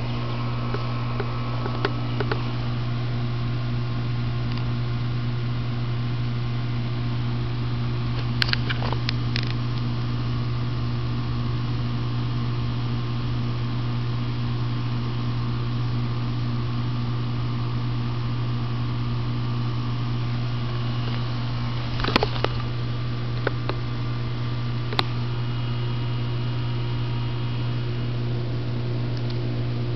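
Air conditioning unit running with a steady low hum. A few brief clicks stand out about a third of the way in and twice near three-quarters through.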